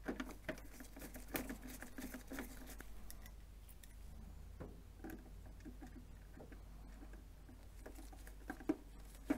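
Faint scratching and small clicks of a screwdriver and screw being handled and driven into the plastic rear case of a Canon G6050 printer, with two sharper clicks near the end, over a steady low hum.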